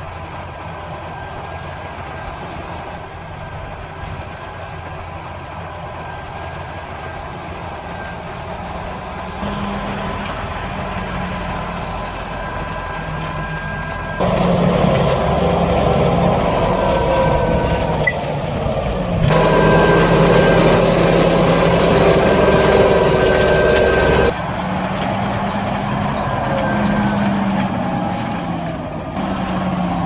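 Fendt Vario 724 tractor's diesel engine running steadily under load while ploughing. The sound changes abruptly in loudness several times and is loudest in the middle, as if separate takes were joined.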